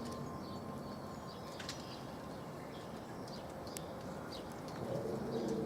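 Outdoor ambience of light wind with small birds chirping now and then and a dove cooing near the end.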